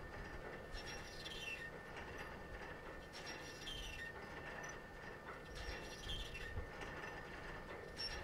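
A songbird repeating the same short, falling song phrase about every two and a half seconds, over low wind noise on the microphone.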